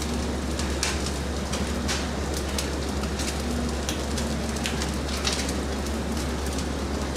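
Skewered eel sizzling on a grill, a steady hiss broken by irregular crackles and pops, over a steady low hum.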